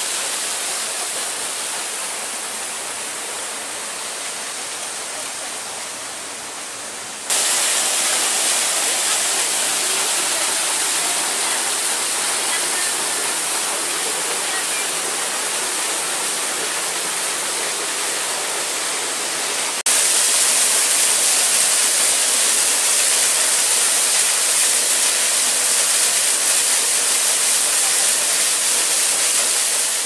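Steady rush of water falling and splashing over rocks at a waterfall, a constant hiss-like roar with no pitch. It jumps abruptly louder twice, about 7 seconds and 20 seconds in.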